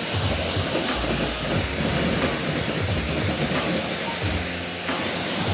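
Pressure washer spraying a steady, hissing jet of water onto a car's bodywork, rinsing off soap.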